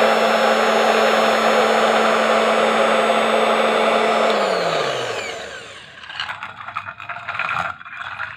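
Mini electric fabric-cutting machine's motor running steadily with a high whine. About four seconds in it is switched off and winds down, its pitch falling over about a second. Scattered clattering and handling knocks follow.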